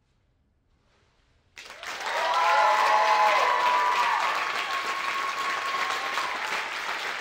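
Church congregation bursting into applause and cheering after about a second and a half of near silence, with whoops and a long held high cry or whistle among the clapping.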